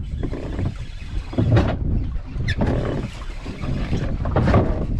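Wind rumbling on the microphone and sea water washing against the hull of a small fishing boat, with a few louder surges about a second and a half, two and a half and four and a half seconds in.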